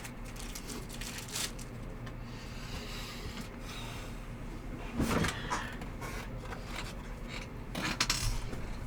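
Trading card packs and cards being handled: a few short rustles and scrapes, the longest about five seconds in and another near the end, over a low steady hum.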